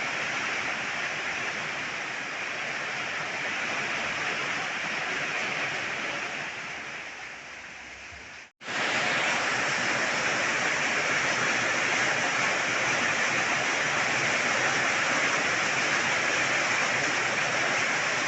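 Heavy rain falling, a steady dense hiss. It fades a little, cuts out abruptly for an instant about eight and a half seconds in, then comes back louder and steady.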